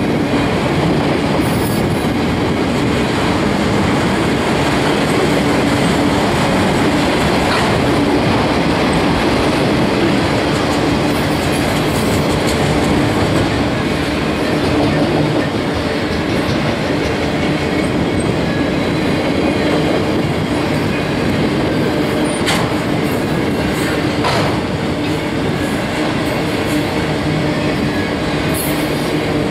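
Enclosed autorack freight cars rolling past close by: steady rumble and rattle of steel wheels on the rails, with a steady low hum underneath and a few sharp knocks, about 7 seconds in and twice more near the end.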